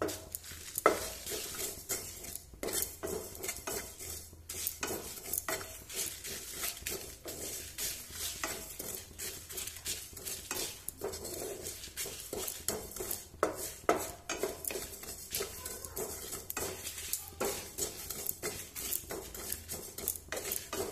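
Spatula stirring and scraping whole spices and dried red chillies around a nonstick frying pan as they dry-roast, a continuous run of irregular scrapes and light clicks against the pan.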